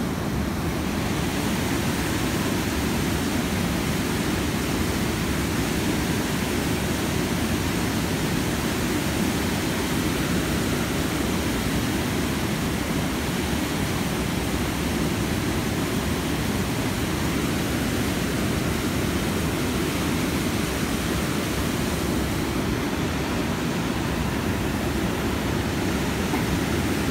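Steady rushing of river water pouring over a low dam: an even, unbroken noise, heaviest in the low range.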